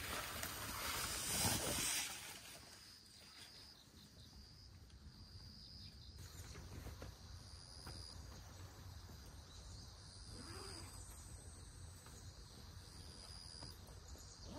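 Insects trilling faintly, thin high-pitched tones that come and go, with a brief burst of noise in the first two seconds.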